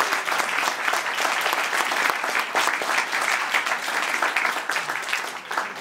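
An audience applauding: many people clapping at once, dying away near the end.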